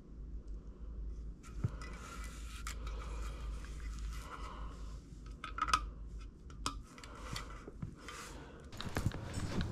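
Items being handled and rubbed together, with rustling and scraping and a few sharp clinks, from a handful of metal watches and bracelets jostled while decorations are picked up.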